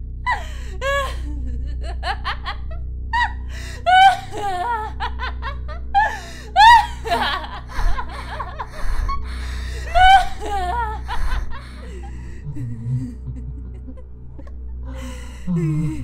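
A woman's high-pitched laughter in repeated short bursts for about the first eleven seconds, over a low steady drone.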